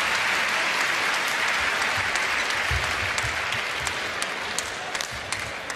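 Arena crowd applauding, the applause dying away gradually. From about halfway, low thuds and sharp clicks come through as a badminton rally gets under way.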